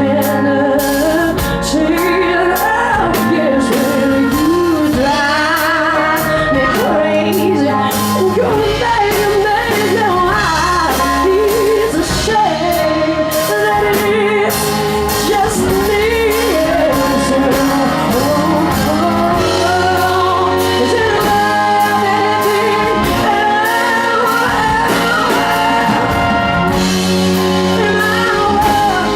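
Live band playing loudly, with drum hits keeping a steady beat and a woman's voice singing over the instruments.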